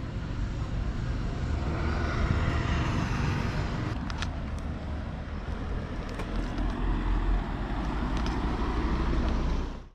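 Outdoor street ambience: road traffic noise with a steady low rumble, and a few faint clicks.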